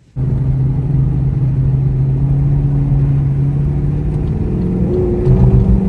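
Pontiac G8 GT's 6.2-litre LS3 V8 running with a steady low drone, then rising in pitch and getting louder about five seconds in as the car accelerates.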